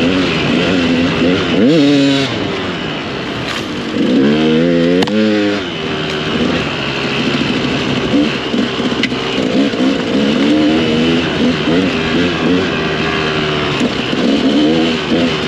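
Dirt bike engine running under throttle up a rocky climb, the revs rising and falling as the throttle is worked, with sharp rises about two seconds in and again around five seconds.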